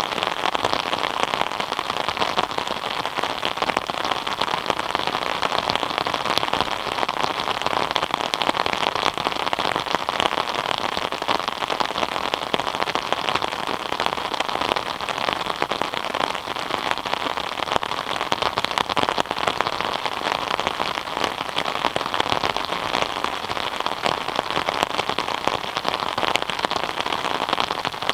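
Steady rain falling, a dense patter of many individual drops at an even level throughout.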